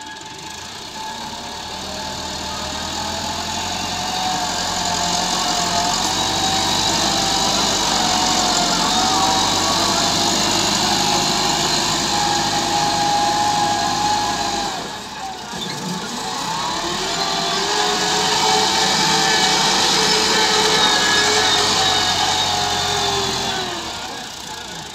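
Massey Ferguson 385 tractor's four-cylinder diesel engine working hard under load as its front blade pushes sand, the engine note wavering up and down with the load. About halfway through it drops briefly, then builds back up.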